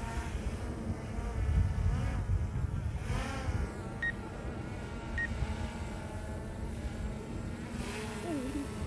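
DJI Mavic Air 2 quadcopter drone flying close by, its propellers making a steady buzzing whine whose pitch drifts up and down as the motors change speed.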